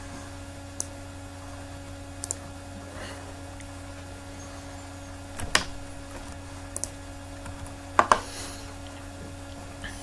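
A handful of short, sharp clicks from a computer mouse and keyboard, some in quick pairs, the loudest two about five and a half and eight seconds in, over a steady low hum.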